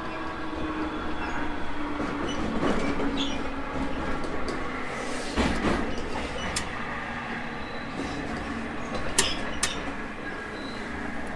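JR Kyushu 811 series electric train running, heard from inside the car: a steady rumble of wheels and running gear with a faint low hum. A few sharp clicks come around the middle and near the end.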